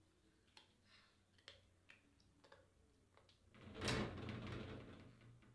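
Quiet kitchen handling sounds: small scattered clicks and rustles while bananas are peeled and set on a plate. About four seconds in comes a louder scrape that fades out over a second or so.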